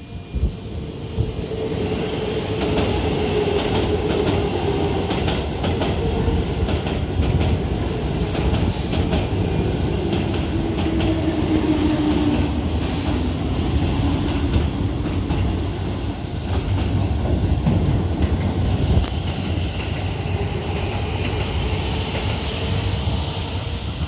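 Keihan 8000 series electric train passing close by: a steady heavy rumble with wheels clacking over the rail joints. A whine in it slides down in pitch around the middle as the cars go by.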